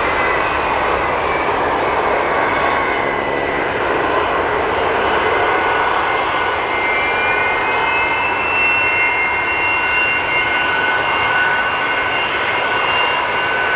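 Boeing 737 MAX 10's CFM LEAP-1B turbofan engines at takeoff thrust as the jet rolls and climbs away: a loud, steady jet noise with a high whine over it. From about six seconds in, some of the whining tones glide upward in pitch.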